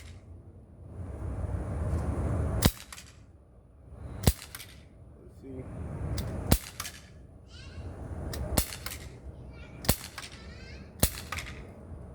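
CO2-powered Glock 19 replica BB pistol firing six shots, one every one and a half to two seconds, each a sharp crack.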